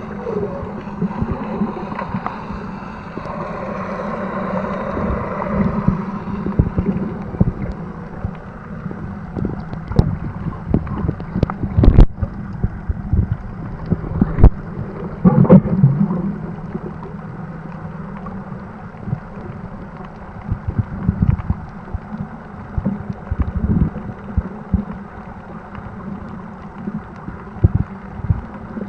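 Muffled underwater sound from a camera held in the sea: a steady low rumble of moving water with a faint hum, broken by a few sharp knocks and bumps around the middle.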